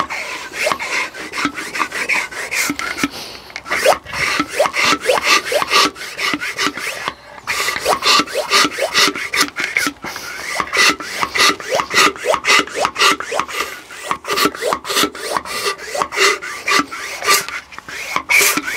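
Hand blow-out pump being worked in quick strokes to blast dust out of a hole drilled in concrete, cleaning it for a chemical-resin rebar anchor. The piston rubs in the barrel about two to three times a second, many strokes with a short rising squeak, in runs broken by a few brief pauses.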